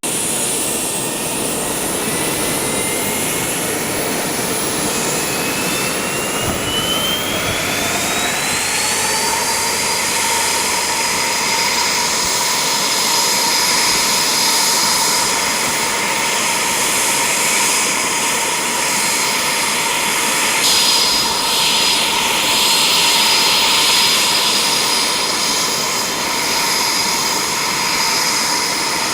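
Eurofighter Typhoon jet engine whining up in pitch over the first several seconds as it spools, then settling into a steady high whine over a rushing roar.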